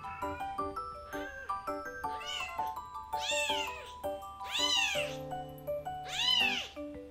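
A two-day-old kitten crying loudly at the nursing bottle: about five high-pitched meows, each rising then falling in pitch, getting louder as they go. The cries are its complaining at its first bottle, which it cannot yet drink from well.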